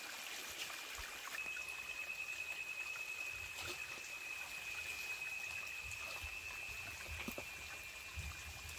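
Faint trickling water among stones, under a steady high-pitched whine that grows stronger about a second in. A few soft knocks of rocks are heard as stones are turned over in the streambed.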